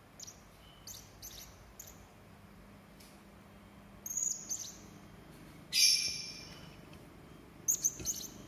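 Hanging parrot (serindit) giving short, high, sharp calls in scattered bursts, with a louder, harsh call about six seconds in and a quick cluster of calls near the end.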